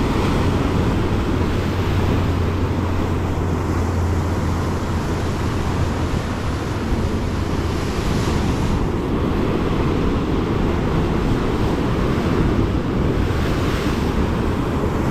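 Surf breaking against a rock ledge, with wind on the microphone: a steady loud rush of noise, with a hissier swell about eight seconds in and again near the end.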